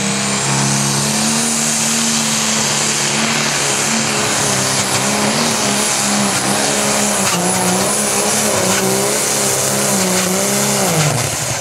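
Pro Stock pulling tractor's diesel engine at full power dragging the weight sled, a dense steady running sound with a high whine rising over the first couple of seconds. The engine note wavers and then falls away near the end as the run finishes.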